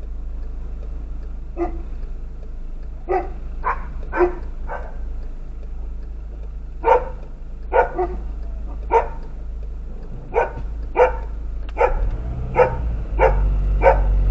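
A dog barking repeatedly, more than a dozen short barks in irregular runs, over the steady low hum of a car engine that grows louder near the end.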